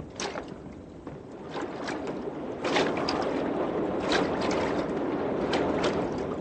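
Water lapping and splashing, quiet at first and louder from about two and a half seconds in, with several sharp splashes.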